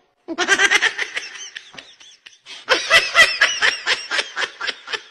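Laughter in quick repeated bursts: one outburst begins just after the start, and a stronger, pulsing run of laughs follows from a little before the three-second mark.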